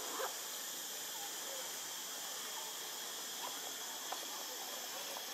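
Steady high hiss of outdoor ambience, with a few faint short chirps and squeaks and a few soft clicks.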